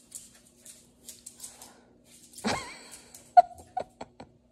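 A small dog moving about on a tile floor, its claws ticking lightly, then a short dog sound with a bending pitch about halfway through. A sharp knock comes near the end, followed by a few quicker clicks.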